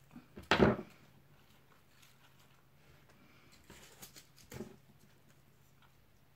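Craft materials being handled on a plywood worktable: a short, loud rustle and knock about half a second in, then softer clicks and rustles about four seconds in.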